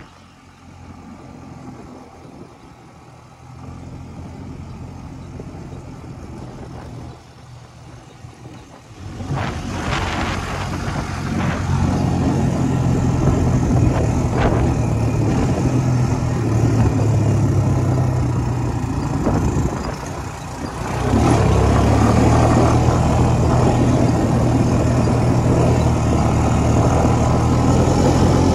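Honda ATV's single-cylinder four-stroke engine, at first faint and at low revs, then about nine seconds in coming up loud under throttle as the quad is ridden. It eases off briefly about twenty seconds in, then pulls steadily again.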